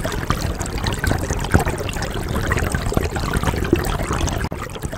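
Running water trickling, a dense, irregular patter of small splashes and gurgles.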